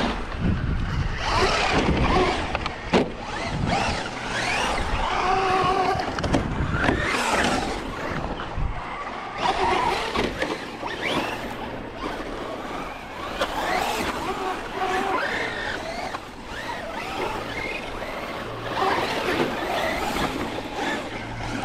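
Electric motors of radio-controlled trucks whining, rising and falling in pitch as they speed up and slow down, over a rough rumbling noise, with a sharp knock about three seconds in.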